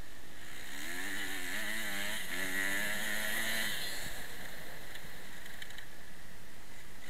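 Motocross bike engine revving up and down for a few seconds, heard from a helmet camera over steady wind rush, then fading back into the wind noise.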